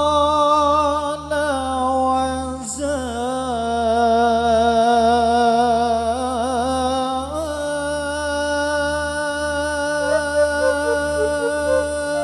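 A male lead singer sings a slow, melismatic Arabic sholawat vocal line through a microphone, holding long notes with wavering, bending ornaments. Under it runs a steady low drone, with no percussion.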